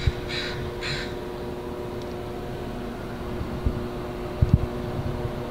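Steady mechanical hum holding a few even tones, with a few short hissy bursts in the first second and a few dull low thumps later on.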